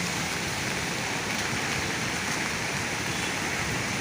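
The Swat River in flood: fast floodwater rushing with a steady, even noise.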